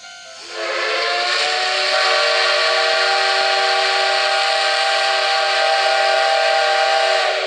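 Steam whistle of the C58 363 steam locomotive blowing one long blast of several pitches together, sounding as it departs. The blast starts about half a second in and stops near the end.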